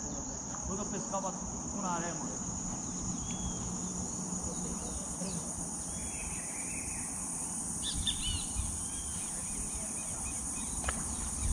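Insects trilling in a steady high-pitched chorus. A few short chirps come about eight seconds in, and one sharp click comes near the end.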